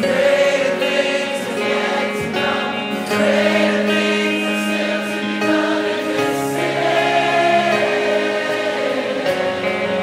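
Background Christian worship music with a choir singing long held notes.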